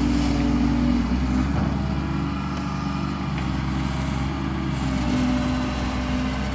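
Excavator's diesel engine running steadily, its note easing off a little about a second in and picking up again near the end.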